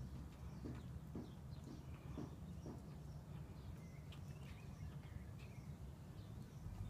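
Quiet outdoor ambience: a steady low rumble with a few faint, short bird chirps, and some soft knocks in the first few seconds.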